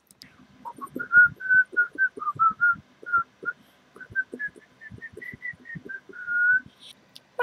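Someone whistling a lively tune of short notes, climbing a little higher midway and ending on one longer note, over a string of soft low knocks.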